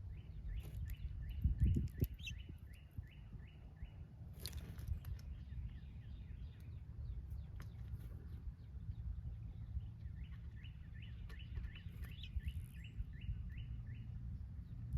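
A songbird singing: two runs of about a dozen short, falling notes, about four a second, the second run coming about ten seconds in. A steady low rumble and a brief rustle about four seconds in lie beneath it.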